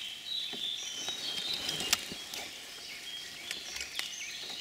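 Raindrops dripping onto a car roof: scattered sharp, tinny ticks at irregular intervals, over faint distant birdsong.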